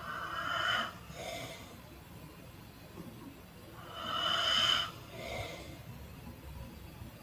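A person snoring in their sleep: two slow breaths about four seconds apart, each a louder snore of just under a second followed by a shorter, softer breath.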